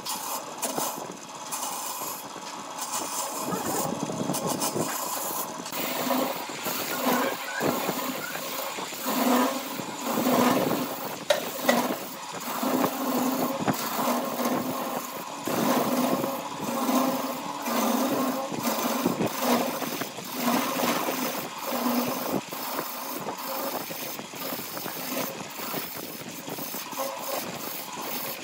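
A woodworking power tool running and cutting wood, with scraping and frequent short knocks and clicks over a steady machine noise.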